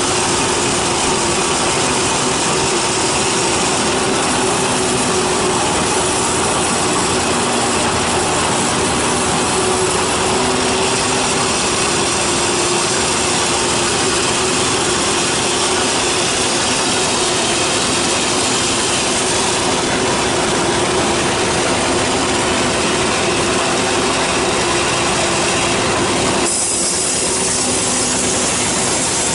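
Large sawmill band saw running and ripping through a teak log, a steady loud mixture of machine running and blade cutting wood. The sound changes abruptly near the end, turning hissier and thinner.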